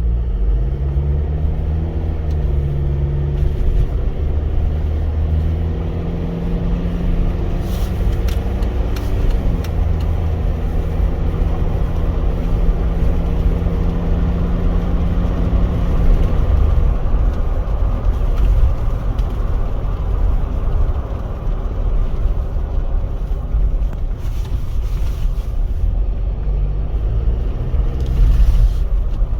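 Jeep Wrangler JK's common-rail diesel engine running under way, its tone holding steady for stretches and then shifting with engine speed.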